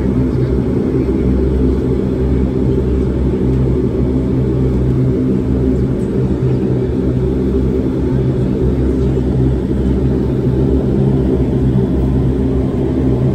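Porter Airlines Dash 8-400 turboprop's engine and propeller running steadily as the plane taxis, heard from inside the cabin: a low, even drone with no change in pitch.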